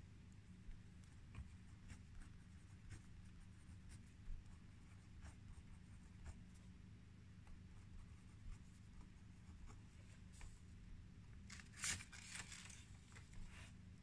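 Faint scratching of a pen writing on paper: light strokes and ticks scattered throughout, with a louder run of quick scratchy strokes near the end. A low steady hum runs underneath.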